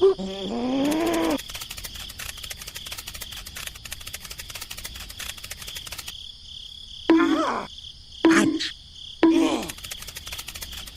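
Insects, cricket-like, chirping steadily as a continuous high trill. A pitched call glides through the first second or so, and three short calls, each falling in pitch, come about two thirds of the way through.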